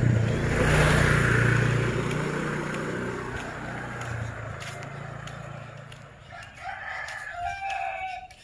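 A motorcycle engine passes close by, loudest about a second in, then fades over the next few seconds. About six seconds in, a rooster crows once for nearly two seconds.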